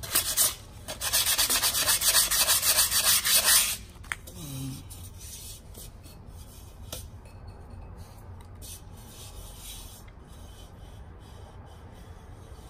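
Sandpaper rubbed in rapid back-and-forth strokes against the edge of a terra cotta clay pot, smoothing and rounding the rim, for about four seconds before stopping. A single faint click follows a few seconds later.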